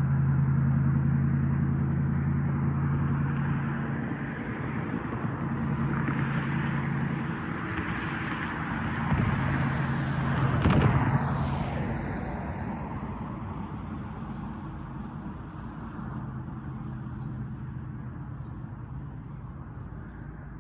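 Road vehicles running past on the street. One passes close about halfway through, with a knock and a falling whoosh as it goes by, and the sound then fades to a quieter engine hum.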